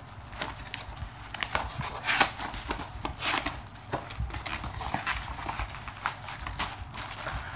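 Irregular clicks, knocks and light rustling of things being handled close to the microphone, with two louder knocks about two and three seconds in.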